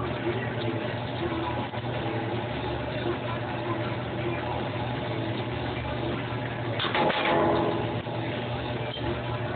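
Electric power press running with a steady motor hum, with one louder mechanical stroke lasting under a second about seven seconds in as it cycles to stamp a copper spoon blank.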